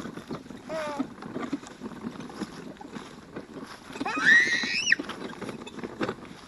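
Chickens calling: a short falling squawk about a second in, then a longer call around four seconds in that rises, holds and drops off, over a steady low rustle.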